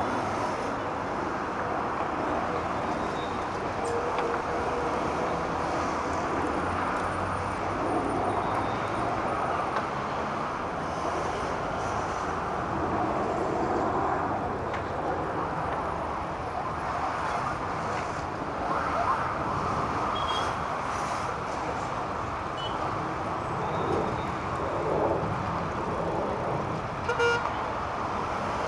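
Steady city road traffic noise from cars, trucks and buses, with a few brief louder sounds over it, the loudest near the end.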